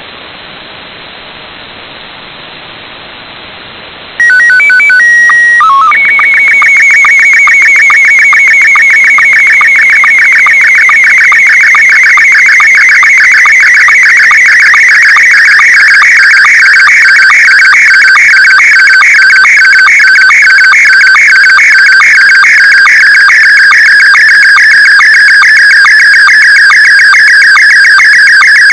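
Shortwave receiver hiss in upper sideband, then a loud slow-scan television (SSTV) image transmission breaks in about four seconds in: a short header of steady beeps, followed by a fast, regularly pulsing warble as the picture lines are sent.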